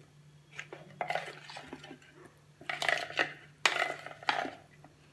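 Spoon stirring and scraping against a bowl while boiled cauliflower florets are coated in a wet chutney paste, in several short bouts of clinks and scrapes.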